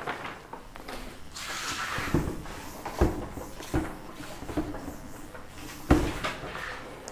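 A cloth wiping a whiteboard clean, a rubbing hiss broken by several dull knocks.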